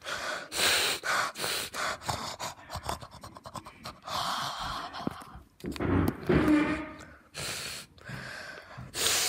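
A child making exaggerated snorting, huffing breath noises right against the microphone: a string of short, irregular breathy blasts, with a deeper voiced grunt about six seconds in.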